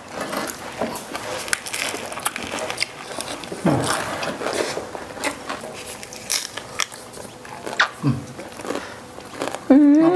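Close-miked biting and chewing of crispy deep-fried red tilapia rolled with greens, the fried crust crackling in many sharp crunches.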